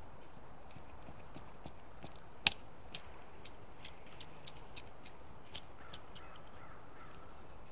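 Thin stick being split lengthwise with a BeaverCraft Glacier bushcraft knife: a string of sharp cracks and clicks as the wood gives way, the loudest about two and a half seconds in.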